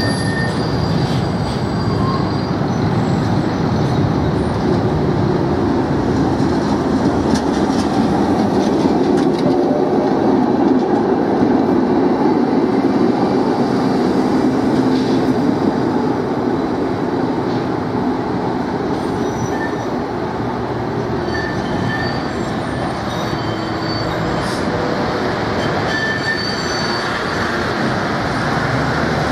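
Older high-floor tram running by on rails: a steady rumble of wheels on track, fullest midway as it passes close, with short high squeals from the wheels on the curving track.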